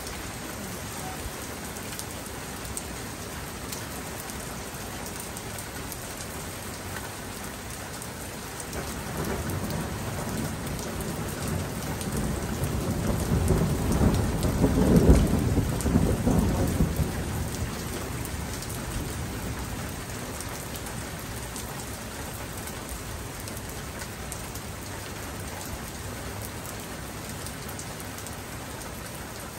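Steady rain falling, with a long roll of thunder that comes in about nine seconds in, grows to its loudest about fifteen seconds in, and rumbles away by about twenty seconds.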